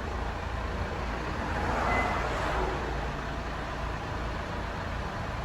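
Fiat Toro pickup driving away, its engine and tyre noise swelling about two seconds in and then easing off.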